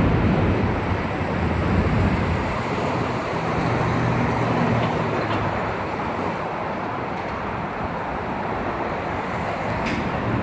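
City street traffic noise: motor vehicles passing, with a low engine hum that is strongest in the first half and then eases.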